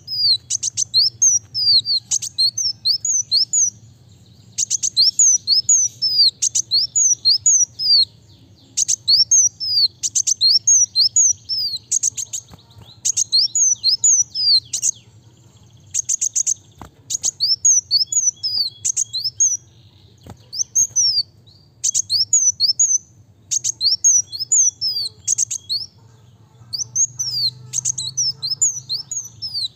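Kolibri wulung sunbird singing in fast, tightly packed phrases of high, quick down-slurred chirps, phrase after phrase with only brief pauses between them.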